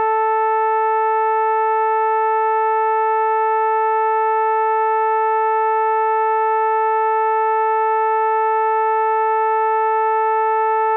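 A steady electronic synthesizer tone from a vocoder sound effect, held on a single pitch near the A above middle C with a row of overtones. It does not change in pitch or loudness.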